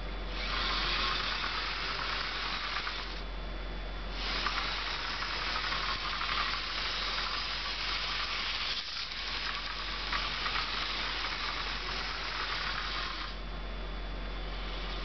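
Bachmann HO scale diesel model locomotive running on track: its small electric motor and wheels give a steady high whir that drops away briefly about three seconds in and again near the end, over a steady low hum.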